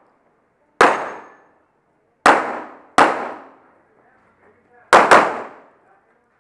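Five pistol shots fired at steel plates, each a sharp crack with a ringing decay; the first three come about a second and a half and then under a second apart, and the last two in quick succession near the end.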